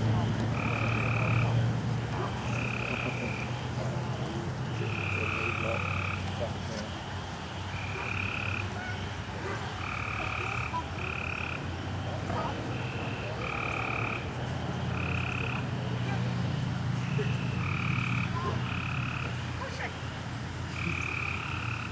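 Repeated short animal calls, each about half a second to a second long, coming every second or so, over a steady low hum.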